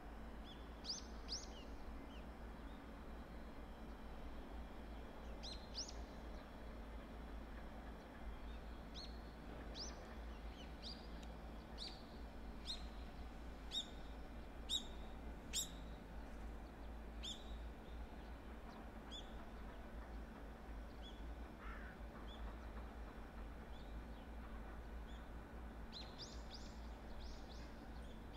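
Small birds chirping: short, high, rising calls about once a second, the sharpest three in a row near the middle, over a faint steady low rumble.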